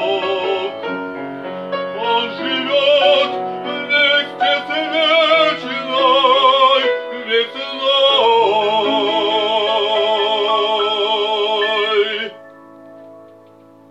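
Male classical singer singing with vibrato over piano accompaniment, closing on a long held note that stops about twelve seconds in. The piano goes on sounding softly after the voice ends.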